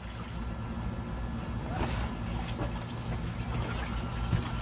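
Water sloshing with a few light splashes in an inflatable paddling pool as children move about in it, over a steady low rumble.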